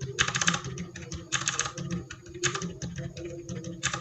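Mechanical keyboard keys being typed in quick runs, on a DA Meca 6 Plus fitted with a mix of Outemu silent tactile, silent linear and blue clicky switches. Several louder bursts of sharp, rapid clicks stand out about a second apart.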